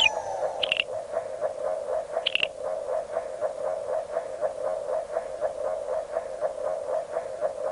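Synthesized electronic sound track: a steady, rapidly pulsing synth tone, with two short high chirps about one and two and a half seconds in.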